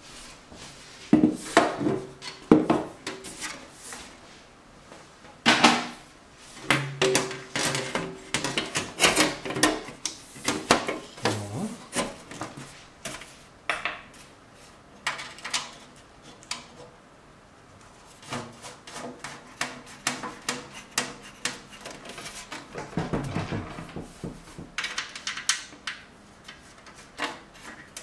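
PC case side panel being handled and fitted onto the case: irregular knocks, clatter and scraping of the panel against the case, a few strikes briefly ringing.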